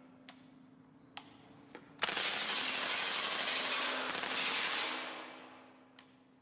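LCT RPK airsoft AK fitted with a Daytona Gun HPA kit firing. Three single shots come in the first two seconds, then a full-auto burst of about three seconds that tails off, then one more single shot near the end.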